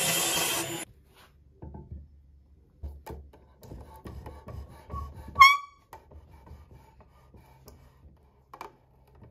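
A table saw cutting wood, which stops within the first second. Then a run of low knocks and rubbing as a tight-fitting wooden block is pushed and tapped into its notch in a workbench top, with one sharp, ringing knock about five and a half seconds in, the loudest sound.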